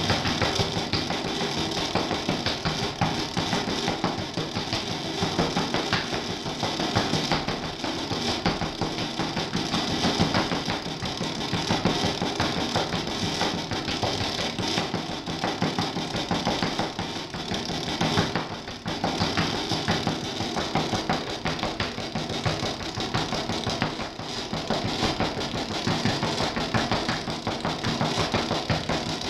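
Throbbing electronic noise music: a dense, harsh continuous wash with fast pulsing running through it, briefly dropping out about eighteen seconds in.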